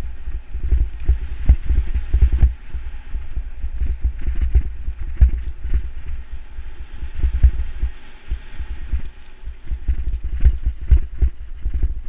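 Wind buffeting an action camera's microphone as a mountain bike descends a dirt singletrack, with frequent knocks and rattles from the bike over bumps and a light hiss of tyres on dirt and dry leaves.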